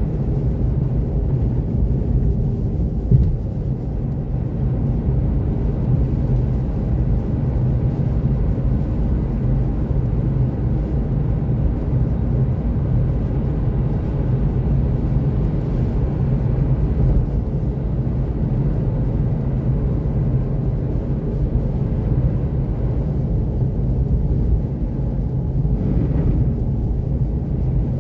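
Steady low rumble of an electric Seat Mii cruising on a snow-covered highway: Nokian winter tyres running through snow, with road and wind noise and no engine note. There is a short knock about three seconds in.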